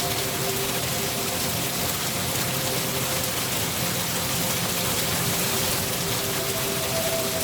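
Steady, even rain. A soft sustained drone of a few held notes sits underneath; it thins out in the middle and comes back near the end.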